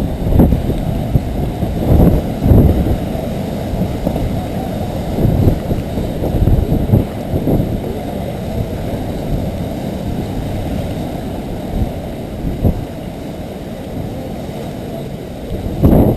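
Hurricane-force wind buffeting the microphone: a low, rough rumble that swells in irregular gusts.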